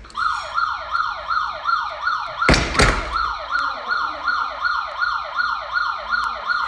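A Tuya Wi-Fi smart alarm hub's built-in siren is sounding after a door sensor was opened while the system was armed. It repeats a quick falling wail about three times a second. A loud thud cuts across it about two and a half seconds in.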